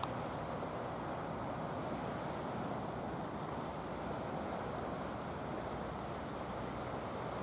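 Steady wash of sea surf on a rocky shore, mixed with wind.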